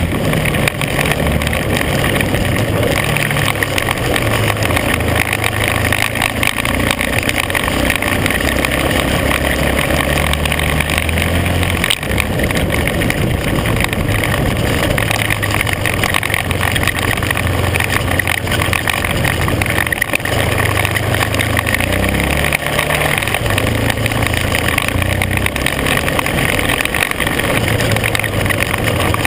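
ATV engine running on a dirt trail, its note stepping up and down again and again as the throttle and gears change, over a steady rush of wind and tyres on gravel.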